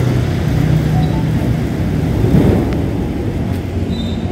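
Iron sliding gate pushed shut by hand along its track, its wheels rolling with a steady rumble while the gate motor is released to manual and freewheels.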